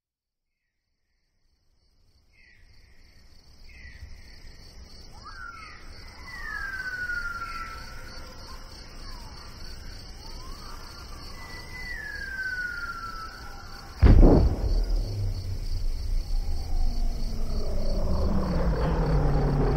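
Sound-designed night-nature ambience from a Dolby Atmos demo soundtrack: a steady high insect chirring with bird calls that fall in pitch, a few of them. About 14 s in, a sudden deep rumble cuts in and keeps building, with low drawn-out tones swelling near the end.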